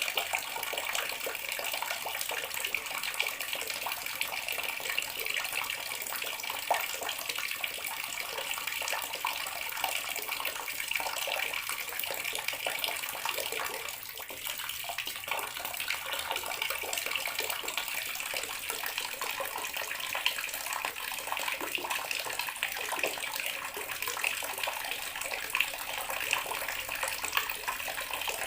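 Water tap running into a bathroom sink: a steady splashing stream that drops a little for a moment about halfway through.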